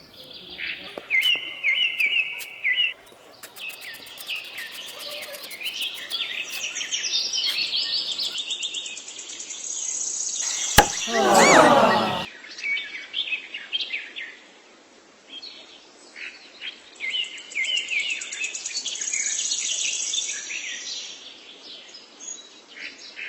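Small birds chirping and trilling over and over, with a sharp click and a short sound gliding down in pitch about eleven seconds in.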